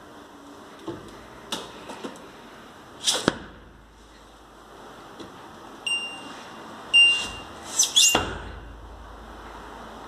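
Touch control panel of a DEXP multi-door refrigerator giving two electronic beeps about a second apart, around six and seven seconds in, as its mode buttons are pressed. Short rustling and crackling handling sounds come before the beeps and just after them.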